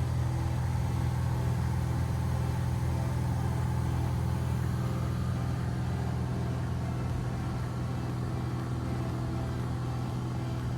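Kitfox light aircraft's engine and propeller droning steadily at cruise, heard from inside the cockpit.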